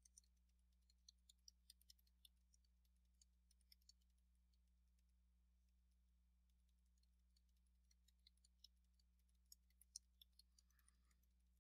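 Near silence with faint, scattered computer clicks from entering data, a few a second at times and pausing for several seconds midway; a low steady hum underneath.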